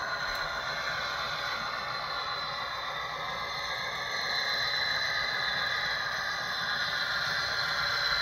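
Model Santa Fe FP45 diesel locomotive running along the track with a passenger car: a steady whir with rattle and scrape from its motor and wheels on the rails, with a thin high whine over it. It grows louder about halfway through as the locomotive nears.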